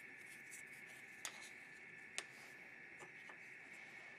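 Near silence: a faint steady room hiss, broken by a few light clicks, the sharpest about two seconds in, as birch wooden butter knives are handled and touch each other.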